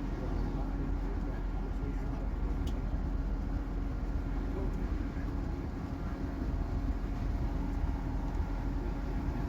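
Class 158 Sprinter diesel multiple unit running along the line, heard from on board: a steady low rumble of the underfloor engine and wheels on the rails, with one small tick about three seconds in.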